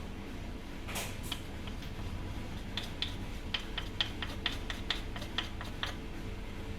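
A spoon lightly clicking and tapping against a bowl in a string of irregular small ticks while a teaspoon of coriander powder is scooped and added.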